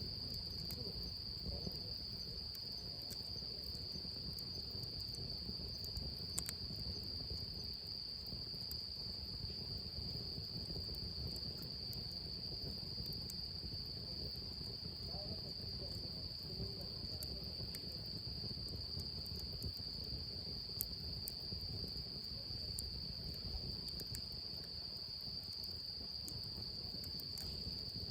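Crickets or similar insects trilling in one high, unbroken, steady chorus, with a low background rumble and a few faint scattered clicks.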